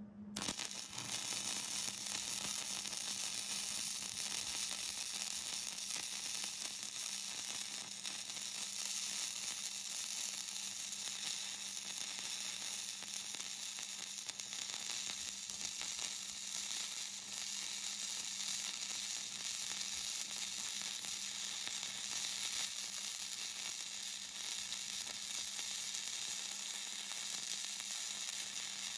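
Flux-core (gasless) wire-feed welding arc from a Hobart Handler 140, making a steady crackling hiss as a vertical-down bead is run. It starts about half a second in, with a faint low hum underneath.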